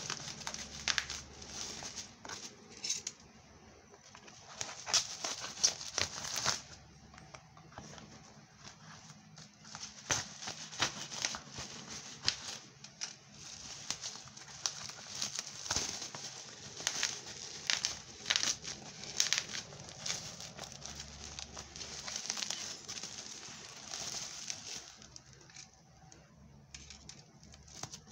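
Plastic wrapping and bubble wrap crinkling and rustling in irregular bursts as they are handled and pulled off a parcel by hand. The sound eases off briefly near the end.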